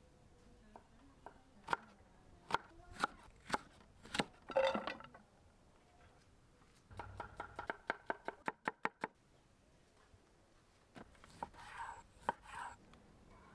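Large kitchen knife chopping food on a thick wooden cutting board, through carrots and raw beef: a few separate strokes, then a quick, even run of chops about halfway through, and a few more strokes near the end.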